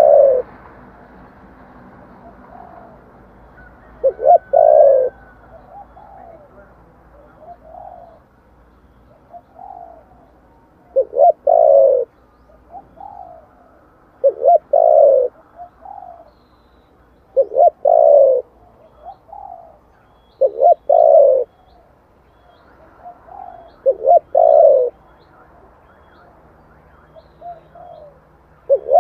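Spotted dove cooing: a loud, low, short phrase of a few notes repeated about every three to four seconds, with fainter coos between the phrases.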